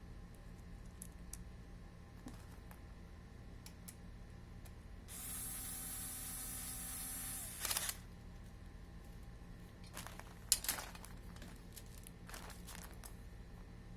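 Small 3.6 V cordless screwdriver motor running steadily for about two and a half seconds about five seconds in, then slowing and stopping, followed by a few sharp clicks of the tool being handled.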